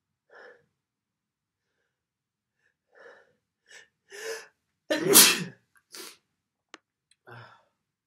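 A man sneezing, the sneeze brought on by tickling his nose: a few short breaths and a rising in-breath build up to one loud sneeze about five seconds in, followed by a couple of short breaths.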